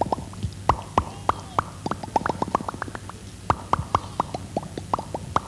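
Mouth-made imitation of water drops dripping from a ceiling: a quick, irregular run of short rising plips, several a second, made close to a microphone.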